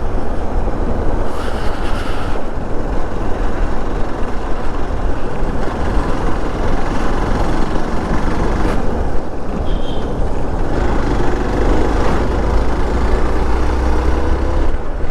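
Motorcycle riding on the road: steady engine and road noise mixed with rushing wind on the microphone. The engine note rises slightly in the last few seconds.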